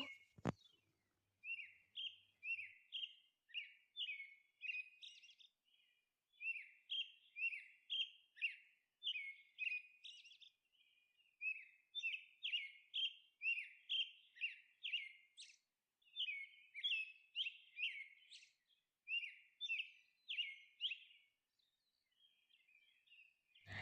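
Faint bird chirping: short high chirps repeated about twice a second, in runs broken by brief pauses.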